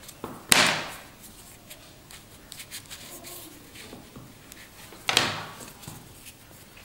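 Canvas watch straps handled and rubbed in the hands, making two short scraping rustles, one about half a second in and one about five seconds in, with faint small clicks between.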